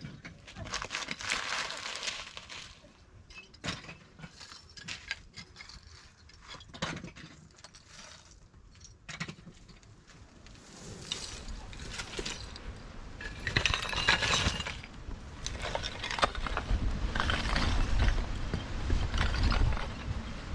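Scattered clinks and knocks, like small hard objects being handled or knocked together. From about halfway, gusts of strong wind buffet the microphone with a low rumble that grows louder toward the end.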